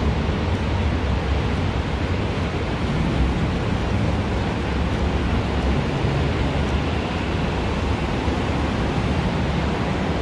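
Steady rushing noise with a heavy, fluttering low rumble: wind buffeting a phone microphone while walking through an open-sided walkway.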